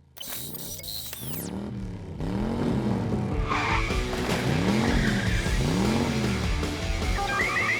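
Cartoon sound effects: a low tone that swoops up and down about once a second over a dense, noisy background, opening with shimmering high sweeps that fall away.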